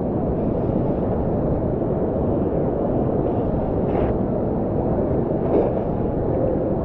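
Steady low rush of moving water from the waterfall and river pool, heard through a camera sitting right at the water's surface.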